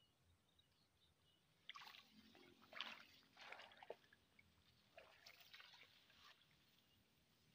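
Faint splashing and sloshing in shallow, weedy water: several short irregular bursts over about four seconds, the strongest a little under three seconds in.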